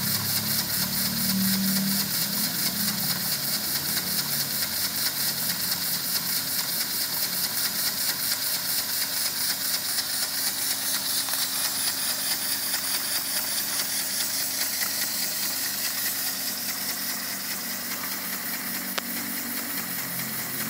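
Homemade scrap-built piston engine, a steam-engine design run on compressed air from a compressor, running steadily. Its exhaust puffs and hisses in a fast, even rhythm, easing off slightly near the end.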